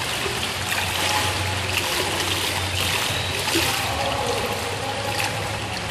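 Steady rush of moving water with a low hum underneath, holding an even level throughout.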